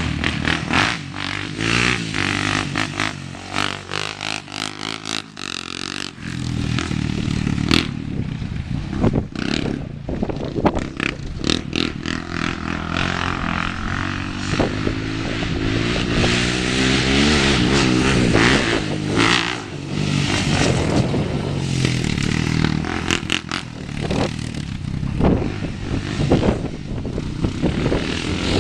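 Honda TRX400EX quad's single-cylinder four-stroke engine through an HMF slip-on exhaust, loud, being ridden: it revs up and falls back again and again, picking up strongly about six seconds in. Many sharp knocks and rattles from the quad over rough ground run through it.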